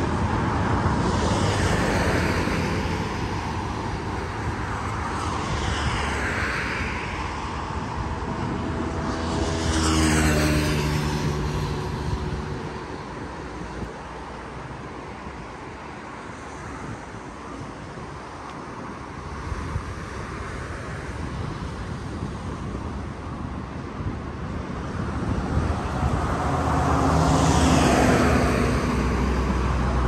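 Road traffic: vehicles passing one after another, each swelling and fading. The loudest pass, with a falling pitch, comes about ten seconds in, and another builds near the end, with quieter road hiss between.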